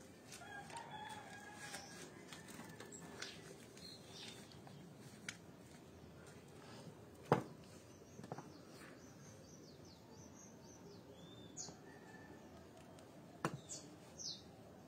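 Faint bird calls in the background, with short high chirps in the second half, and a few sharp taps or knocks, the loudest about seven seconds in.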